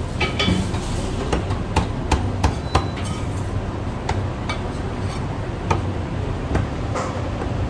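Meat cleaver chopping marinated goose on a thick round end-grain wooden chopping block: a string of sharp chops, about two a second and unevenly spaced, over a steady low hum.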